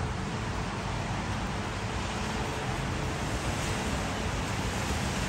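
Steady rushing background noise with a faint steady hum.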